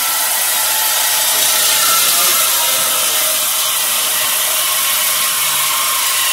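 Handheld power cutting tool running steadily as it cuts through the Dodge Charger's steel exhaust pipe to remove the mid-mufflers. It makes a loud, even hissing whine with no clear rhythm.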